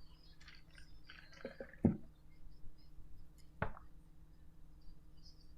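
A few short soft clicks, about one and a half, two and three and a half seconds in, over a low steady hum.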